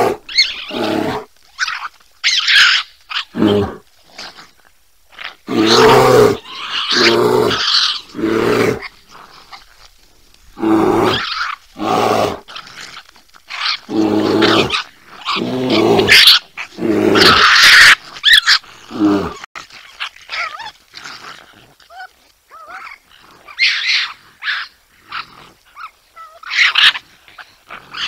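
Raccoon growling and barking in a run of harsh calls, each up to about a second and a half long, with short pauses between. Some are low and throaty, others rasping and high.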